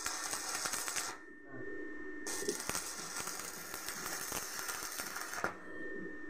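Electric arc welding: the arc crackles and sizzles for about a second, stops, then strikes again and crackles steadily for about three seconds before it is broken off near the end.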